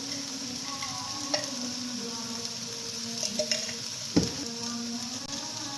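A stir-fry of betel leaves and tempe sizzling in a pan while it is stirred, the spatula clicking against the pan a few times, with one louder knock about four seconds in.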